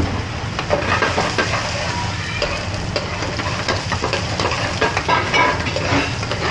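Chopped onions sizzling in a metal frying pan on a gas range as a ladle stirs them, scraping and clinking against the pan over and over, over a steady low hum.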